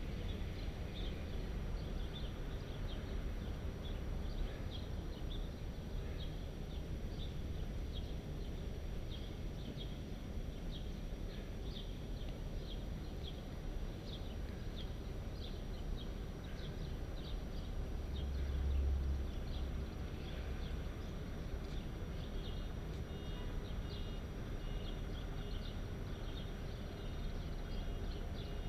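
Steady low rumble of wind buffeting the microphone and tyre noise from a bicycle rolling along a city street, with light high-pitched ticks recurring over it. The rumble swells briefly about two-thirds of the way through.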